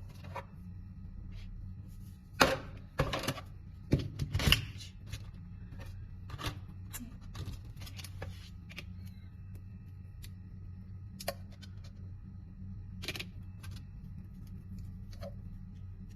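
Plastic quick wire connector and wires being handled and snapped together: a series of sharp clicks, loudest in a cluster between about two and five seconds in, then scattered lighter clicks.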